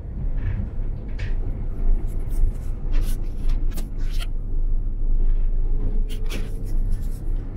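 Cabin sound of a Cobra low-floor tram running: a steady low rumble from the running gear, with several brief sharp higher sounds from the wheels and body over the top.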